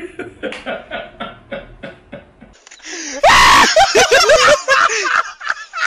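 A man's quiet, breathy laughter in short bursts, then about three seconds in a sudden, very loud, distorted yell followed by voices laughing and calling out in quick rising-and-falling bursts.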